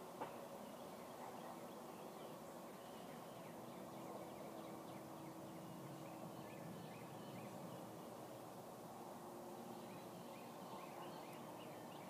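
Faint outdoor ambience: small birds chirping in the trees over a steady low hum.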